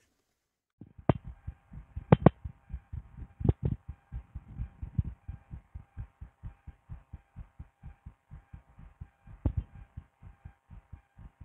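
A person's heartbeat heard through a stethoscope: a fast, even run of low thumps starting about a second in, with a few sharp clicks in the first few seconds and once more near the end, over a faint steady hum.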